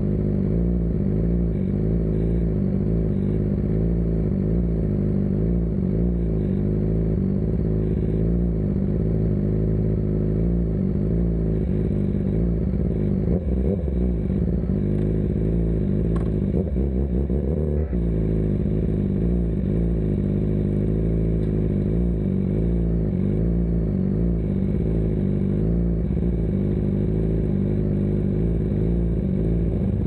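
BMW S1000RR inline-four idling steadily through an Akrapovic full exhaust system; the engine note shifts briefly around the middle.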